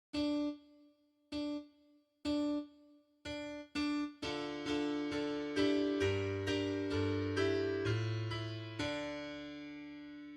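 Piano music: a single note struck five times, each dying away, then chords over a bass line from about four seconds in.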